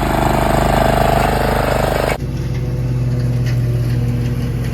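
Old lawn mower engine running steadily. About two seconds in, the sound changes abruptly to a lower, steadier hum.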